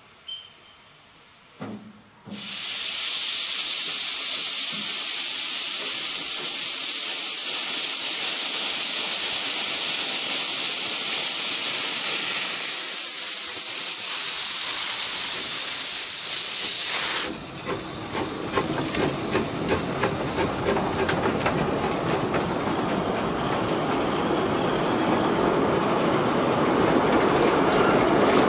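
Narrow-gauge field-railway steam locomotive moving off with a loud, steady hiss of steam from its cylinder drain cocks, which cuts off sharply about two thirds of the way in. The open coaches then roll past with a fast clicking of wheels over the rail joints, growing louder.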